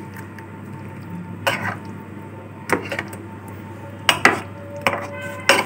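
A spoon stirring thick yogurt-and-milk raita in a bowl, clinking and knocking against the bowl's side about six times at uneven intervals.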